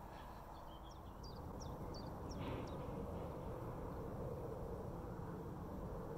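A bird calling: a quick run of short, high chirps, each sliding downward, in the first two and a half seconds, over a steady low outdoor rumble.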